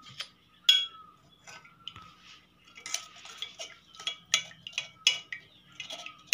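A metal spoon scraping and clinking inside a stainless steel mesh strainer, pressing lemon pulp through into a glass jug. Light clicks and scrapes, sparse at first, then coming about three a second from about three seconds in.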